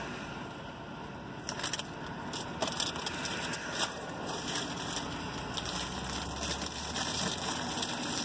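Irregular close crackling and crunching from a paper food bag being handled and crispy hash browns being chewed, over a steady low rumble. The crackles bunch up in the first half and thin out near the end.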